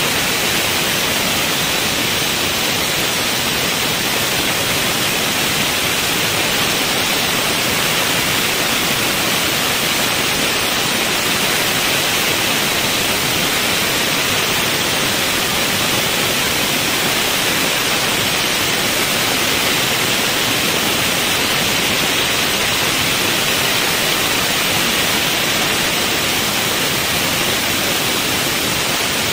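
Multi-blade stone slicing machine running, its row of diamond saw blades cutting through a thick stone block under cooling water spray: a steady, even rush of water and grinding that does not change.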